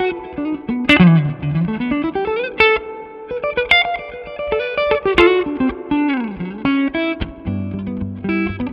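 PRS Silver Sky electric guitar played through a SineWave Sterling Custom Signature amp head: single-note lead lines with notes swooping down in pitch and back up, then fuller chords over a low bass note near the end.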